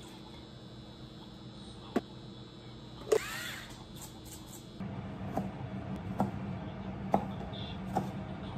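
Kitchen work sounds. A sharp click, then a single ringing clink of a utensil or dish. Partway through, a steady hum starts, with light taps about once a second.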